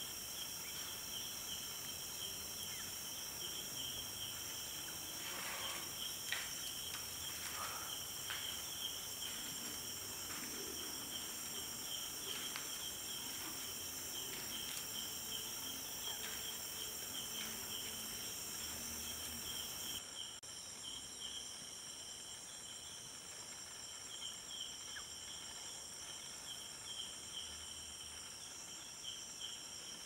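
Night insects chirping steadily in several layers, one a rapid pulsing trill, with a few faint clicks and rustles some five to eight seconds in. About two-thirds of the way through the highest layer drops away and the chorus gets a little quieter.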